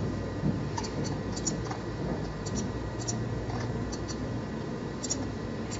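Computer mouse clicking about ten times, short sharp clicks often in quick pairs, over a steady low hum.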